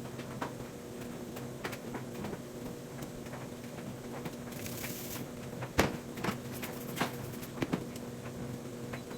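Handling sounds of cleaning work: scattered knocks and clicks over a steady low hum, with a brief hiss about five seconds in and a sharper knock just after it.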